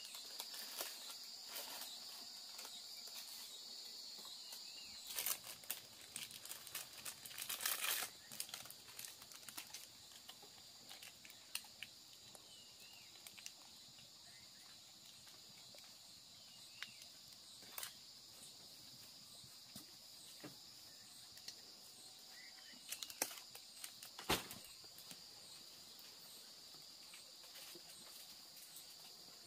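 Insects droning steadily, with scattered rustling, crinkling and sharp clicks of material being handled. The handling sounds are loudest about five to eight seconds in and again around twenty-four seconds.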